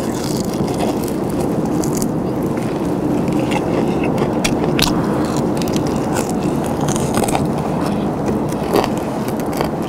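Close-up crunching and chewing of crispy fried chicken, with many short crackling bites over a steady low background rumble.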